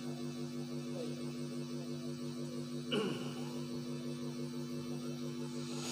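Steady electrical mains hum from the sound system, with a brief falling squeak about halfway through.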